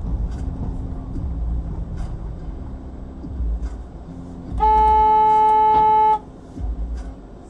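Low road and engine rumble heard from inside a moving car, then a car horn sounding once, a loud, steady blast of about a second and a half starting a little past halfway.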